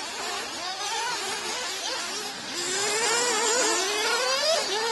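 Several 1/8-scale nitro RC buggies' small two-stroke glow engines buzzing, their pitches rising and falling as the cars accelerate and slow around the track. One climbs steadily in pitch from about three seconds in, then drops off just before the end.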